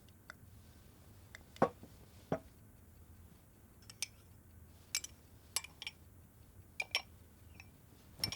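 Cutlery and dishes clinking at a meal table: about ten light, scattered clicks over a faint low room hum.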